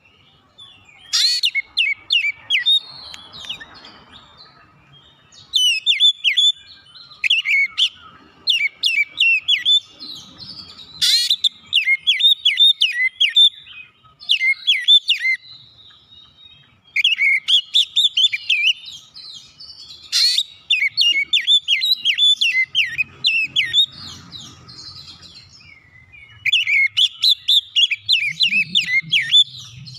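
Oriental magpie-robin (kacer) singing: loud bursts of rapid, sweeping whistled notes, each a second or two long, repeated about eight times with short pauses between.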